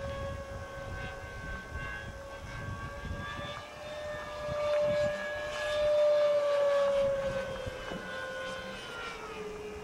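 Electric ducted fan of a 70 mm model jet whining steadily in flight. It grows louder about halfway through, then drops in pitch near the end as the jet passes and moves away.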